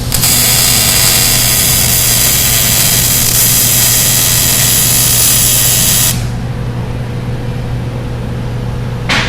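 Welder laying a weld bead on the steel brake tabs of a dolly: a loud, steady hiss for about six seconds that stops abruptly, then a brief sharp noise near the end.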